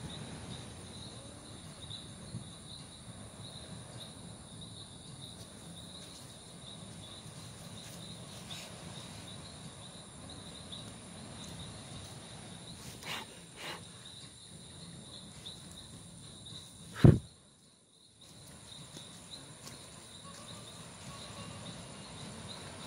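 Crickets chirping steadily over a constant background hiss. There are a couple of small clicks around the middle and one loud, sharp knock about 17 seconds in, after which the sound briefly drops out.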